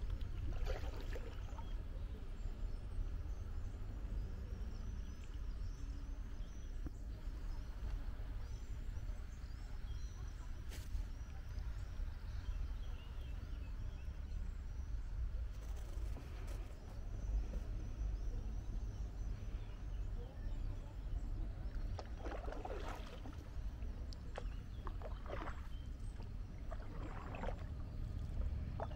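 Kayak gliding on calm water over a steady low rumble, with paddle blades dipping and splashing in a few strokes near the end.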